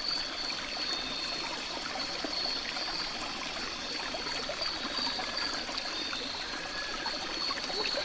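A steady, even hiss like trickling water, with a thin high-pitched tone and many faint scattered ticks: outdoor natural ambience.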